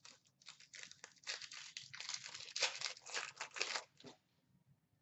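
Foil wrapper of a 2017-18 Upper Deck Series 1 hockey card pack crinkling and tearing open in quick crackly bursts for about four seconds, then stopping.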